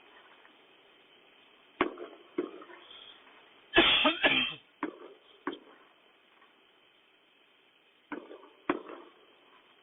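Fireworks going off: single sharp bangs at irregular intervals, each with a short echoing tail, and a loud rapid crackling burst about four seconds in.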